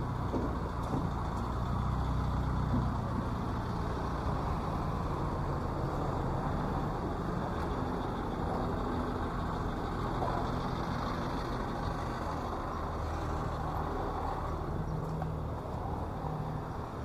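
City street traffic: vehicle engines running, with a steady low engine hum underneath.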